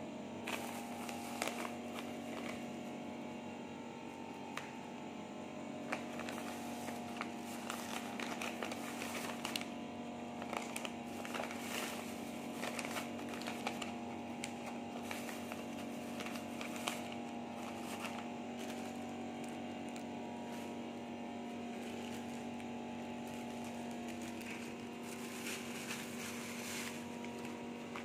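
Plastic grocery bags crinkling and rustling in short, frequent crackles as they are handled, over a steady electrical hum.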